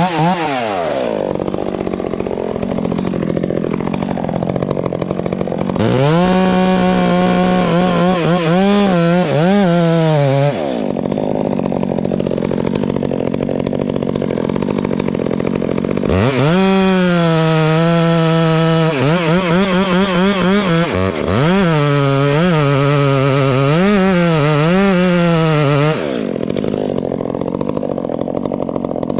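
Chainsaw idling, then opened up to full throttle twice for several seconds at a time, likely sawing into wood, with the throttle blipped up and down between spells before it drops back to idle near the end.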